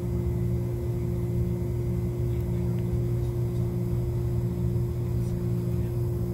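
Steady low machine hum with a constant droning tone.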